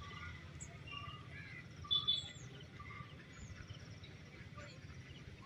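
Birds chirping with scattered short calls, a louder pair about two seconds in, over a low steady background noise.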